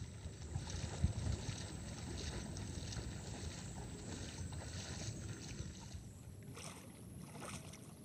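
A person wading through shallow pond water, the splashing of the legs faint at first and sharper in the last second or so as the wader comes closer, over a low rumble of wind on the microphone.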